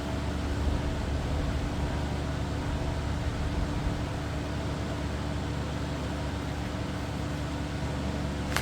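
Steady machine running noise with a low hum, cutting off suddenly at the very end.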